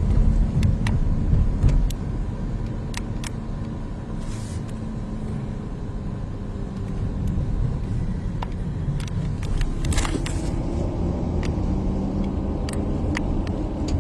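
Car running, a steady low rumble heard from inside the cabin, with scattered small clicks and a brief louder rush about ten seconds in.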